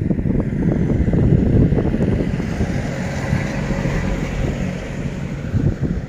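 Wind buffeting the microphone with a low, uneven rumble. Behind it, a vehicle passes on the road, swelling toward the middle and fading again.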